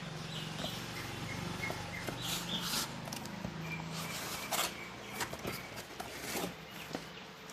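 Hands opening a cardboard carton and handling its paper sheet and foam packing insert: rustling, scraping and light knocks of cardboard and foam. The loudest scrapes come about four and a half and six seconds in. A low steady hum runs underneath for the first four seconds or so, then fades.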